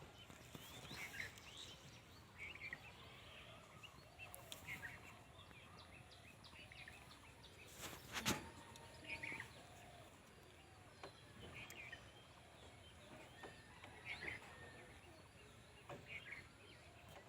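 Faint outdoor background with scattered short bird chirps and one sharp click about eight seconds in; no engine is running.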